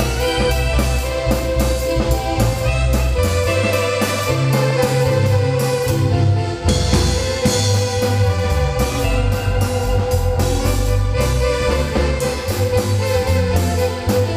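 Marimba band playing dance music: marimba with a strong bass line and a drum kit keeping a steady beat.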